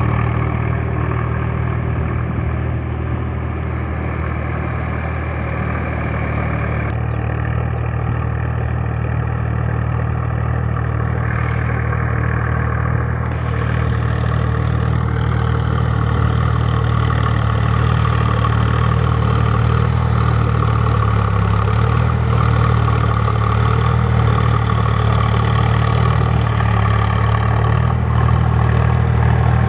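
Sonalika DI 745 III Sikander 50 hp tractor's diesel engine running steadily under load while it drags a rotary tiller through a flooded paddy field. It grows a little louder toward the end as the tractor comes closer.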